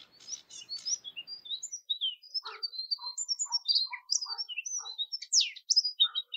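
A songbird singing a fast, varied song of short, high chirps, trills and whistles, with a few lower notes mixed in from a couple of seconds on.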